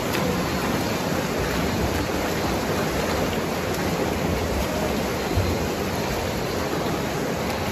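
Steady wash of splashing and churning pool water from swimmers doing front crawl.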